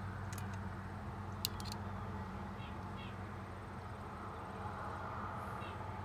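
A few light clicks from handling a seated dummy cartridge and a pair of digital calipers, the loudest about a second and a half in, over a steady low hum.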